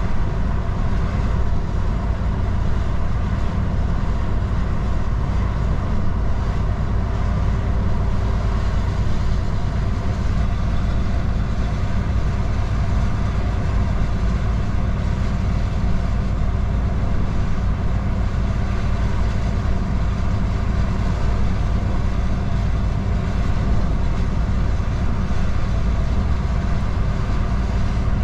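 DAF XF truck driving along, its diesel engine running at a steady note under the rumble of road noise.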